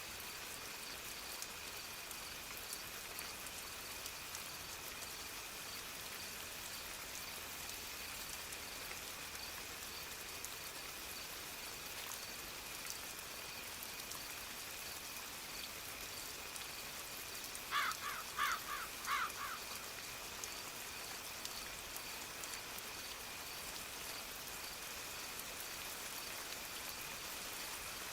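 Soft steady rain, with a faint high-pitched tone pulsing evenly above it. About two-thirds of the way through, a crow caws three times in quick succession, clearly louder than the rain.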